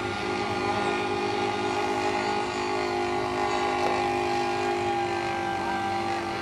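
Radio-controlled P-47 model's Evolution 35cc two-stroke gas engine running overhead in flight, a steady drone that holds its pitch.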